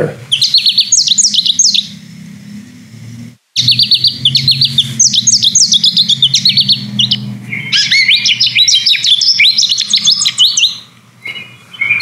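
Male American goldfinch singing: a long, complex jumble of rapid high twittering notes in about four bursts with short breaks between them. The song often mixes in the per-chicory ('potato chip') call and the nasal 'baby' call.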